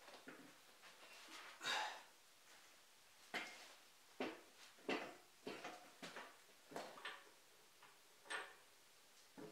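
Faint, irregular knocks and clanks of hand tools on a Dana 30 axle's pinion yoke: a long bar on the pinion nut and a pipe wrench holding the yoke, as the nut is tightened in small steps to set pinion preload. About ten short knocks, unevenly spaced.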